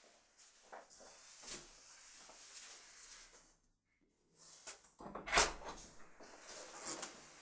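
Wooden front door being opened: a few soft clicks, a brief hush, then the lock and handle clatter loudly about five seconds in as the door is unlatched and swung open.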